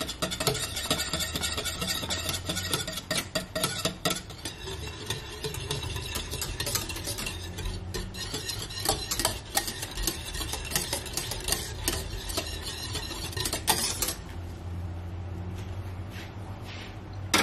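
Metal wire whisk stirring thick lentil soup in a stainless steel pot, with rapid clinks and scrapes against the pot's side. The stirring stops about 14 seconds in, leaving a low steady hum.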